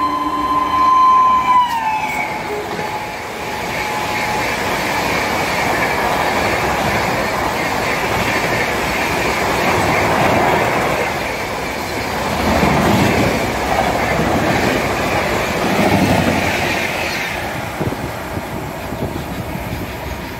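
An Indian Railways electric locomotive sounds its horn as it comes past, and the horn's pitch drops sharply about two seconds in as it goes by. Then the coaches rush past at speed with a loud rumble and wheel clatter that surges several times before easing off near the end.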